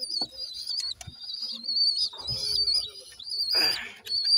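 Young pigeons (squabs) in a nest box making a high-pitched, wavering peeping in short runs with brief gaps, plus a short rustle of nest straw about three and a half seconds in.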